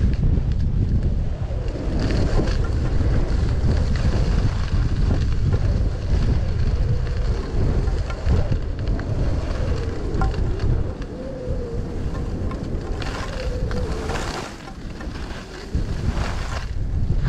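Wind buffeting the microphone: a loud, rough low rumble with a wavering whistle. It eases briefly near the end, with two short high hissing bursts.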